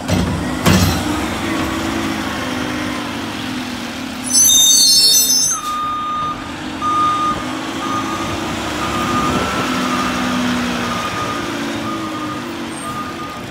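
Mack LR garbage truck's diesel engine running, with a thump just under a second in. About four seconds in comes a loud hiss of air, which fits an air brake release, and then a backup alarm starts beeping steadily, more than once a second, as the truck reverses.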